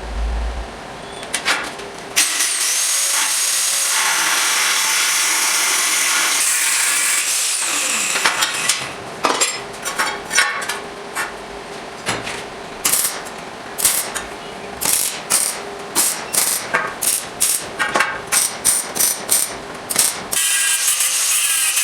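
A power tool runs steadily for about five seconds with a high whine. Then comes a long run of hammer strikes on metal, getting faster to about two a second, and the power tool starts again near the end.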